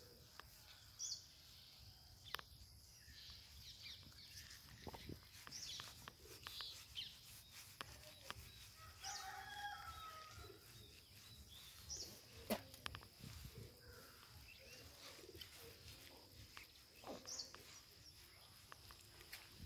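Faint outdoor quiet with scattered short bird chirps and a distant chicken call about nine seconds in.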